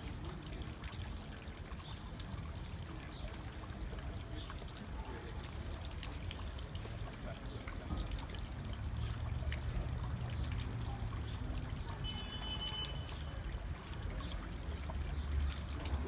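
Water pouring in a steady stream from the mouth spout of a carved stone mask fountain and splashing into its shell-shaped stone basin. A low rumble builds underneath from about halfway through.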